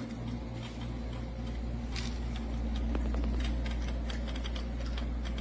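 FREESEA aquarium wave maker circulation pump, plugged back in, running with a steady low hum and irregular ticking and clicking. This is the abnormal running noise that the owner finds unacceptable.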